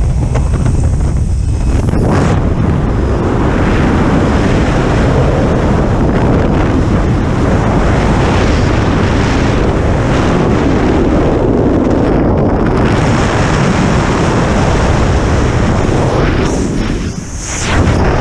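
Freefall wind blasting over a skydiver's camera microphone, a loud steady rush. The first couple of seconds are the open aircraft door with its engine and slipstream noise, and the sound changes as the jumpers leave the plane.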